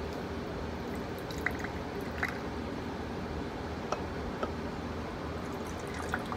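Vinegar poured from a plastic bottle into a glass: a quiet steady pour with about five separate sharp drips.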